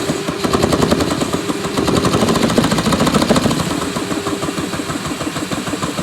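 Engine with a home-converted chain-driven overhead-valve train running with a rapid, staccato exhaust chatter. It runs louder in the middle and settles slightly lower near the end.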